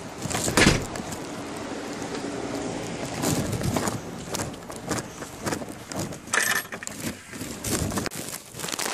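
Handling noise from a hand-held camera carried while walking: irregular rustling and knocking on the microphone, with footsteps on grass and dirt.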